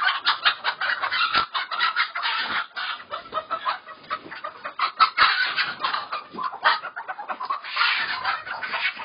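A large flock of white layer hens clucking and squawking together in a dense, unbroken din, stirred up as birds are caught by hand among them.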